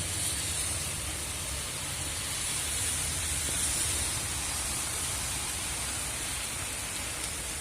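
Heavy downpour: a steady hiss of pouring rain with runoff water, over a low rumble, swelling slightly midway.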